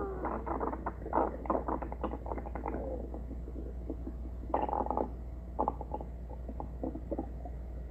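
Stomach growling: a run of short, irregular bubbling gurgles, thickest in the first three seconds, with a longer gurgle about four and a half seconds in and scattered smaller pops after.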